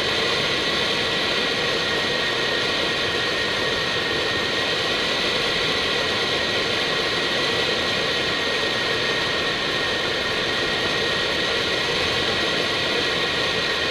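Steady flight-deck noise of an Airbus A319 in flight: the rush of air and the engines' hum, with a thin steady whine running through it.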